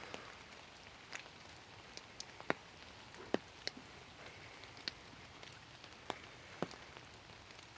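Light rain: a faint steady patter with about ten sharp, irregular drip taps close by, the loudest a little over two seconds in and again around three seconds in.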